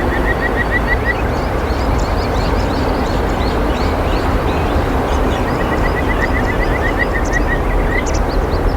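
A steady rushing noise, with a small bird's rapid series of short, rising chirps twice: briefly at the start and again for a couple of seconds near the end.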